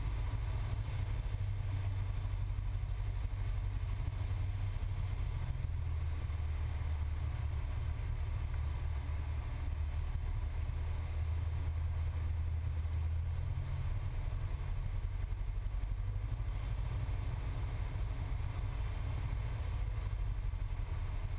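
Cessna 172's piston engine and propeller as heard in the cockpit: a steady low drone at reduced power on final approach.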